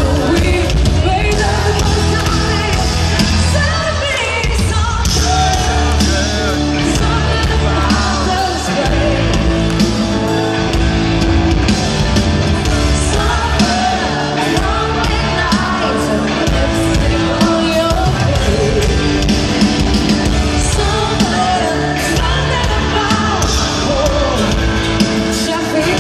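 Live arena concert music: a rock band with a steady beat and a guitar, a singer's voice over it, and fans yelling along.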